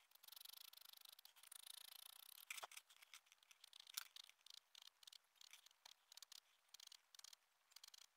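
Faint scratching of a pen on paper in short, quick strokes, with two sharp ticks near the middle.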